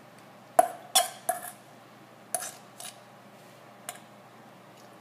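A stainless steel mixing bowl knocked and clinked about six times, each knock ringing briefly, as fruit pie filling is emptied out of it into the pie shell. Three loud knocks come close together in the first second and a half, then softer ones.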